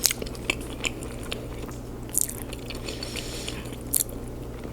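Close-miked chewing of soft lasagna: wet mouth clicks and lip smacks, with a few sharper smacks at irregular moments.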